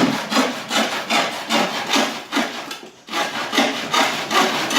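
Handsaw sawing through wood in quick back-and-forth strokes, about three a second, with a brief pause about two and a half seconds in.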